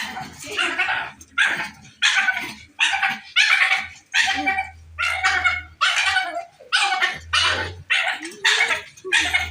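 Dog barking over and over in short, high-pitched barks, about two a second.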